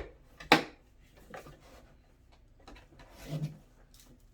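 Hard plastic latches on a VINGLI portable flushing toilet being snapped shut to clamp the top section to the waste tank: a sharp click about half a second in, then lighter plastic knocks and rubbing.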